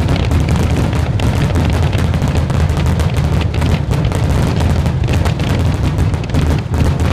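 Fireworks barrage: many aerial shells bursting in rapid, overlapping succession, a continuous run of deep booms mixed with sharp cracks and no break.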